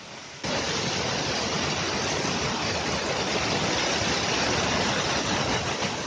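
Mountain waterfall cascading over rocks: a steady, loud rush of falling white water. It jumps suddenly louder about half a second in.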